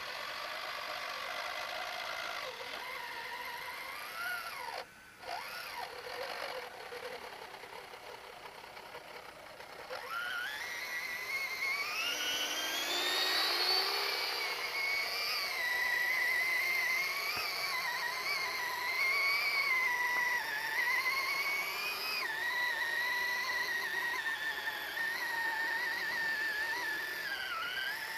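Whine of a radio-controlled model trial truck's electric drive motor and gearbox as it crawls through sand and over rocks. About ten seconds in, the whine rises in pitch and grows louder, then holds, wavering up and down with the load.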